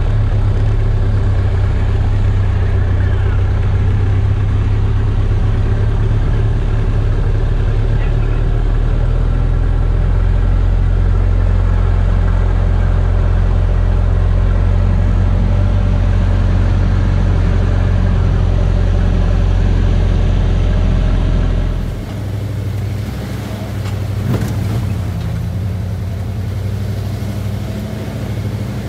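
1985 Ford Bronco's engine running steadily while driving, a loud, deep drone. About three-quarters of the way through the sound changes abruptly to a quieter engine with more hiss and wind.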